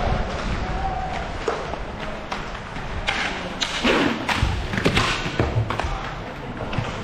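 Hockey play: a string of sharp knocks and clacks from sticks, puck and boards, heaviest about three to five seconds in, over the hollow haze of a rink.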